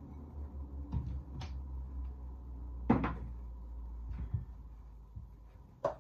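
Kitchen wall-cupboard doors being opened and shut while things are put away: a series of knocks and clicks, the sharpest about three seconds in, with a few softer ones near the end.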